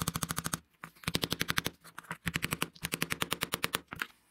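Small hammer rapidly tapping the brass pivot pin of a straight razor's scales, peening the pin over: quick light strikes, about a dozen a second, in four bursts with short pauses between.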